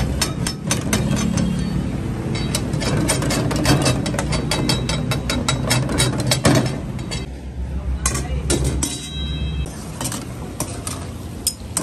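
Steel spatula repeatedly clanking and scraping against a steel karahi as chunks of mutton are stirred and fried, over a steady low hum.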